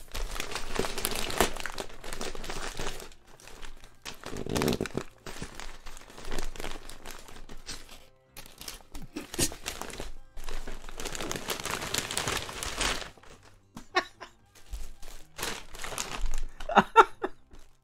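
Gift wrapping being torn open and crumpled by hand: irregular crinkling and ripping in bursts, with short pauses between them.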